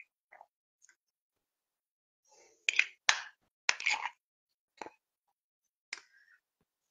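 A handful of short, sharp clicks and smacks: several close together about three seconds in, then two single ones near the end, with silence between.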